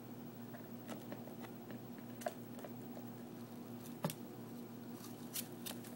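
Faint, irregular taps and scratches of a cockatiel's claws and beak on cardboard as it moves about inside a box, with two sharper clicks about two and four seconds in.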